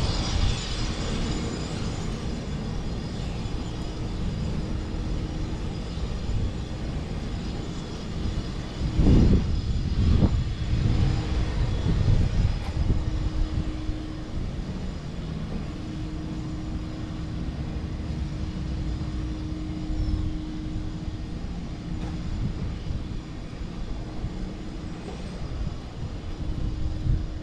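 Steady outdoor engine rumble with an on-and-off low hum, and a louder vehicle pass about nine to twelve seconds in.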